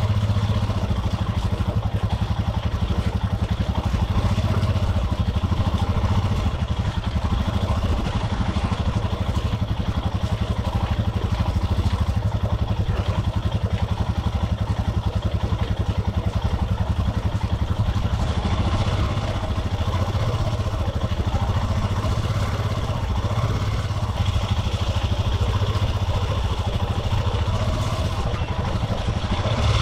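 Royal Enfield Himalayan's single-cylinder engine running steadily as the motorcycle is ridden along.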